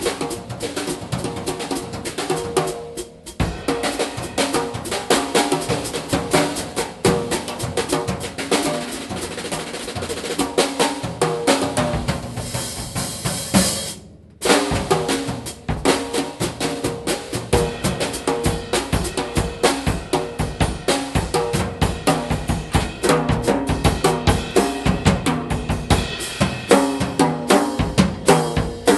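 Live jazz trio playing an instrumental stretch: a drum kit played busily with snare, bass drum and cymbal strokes under electric guitar. The sound cuts out for an instant about halfway through.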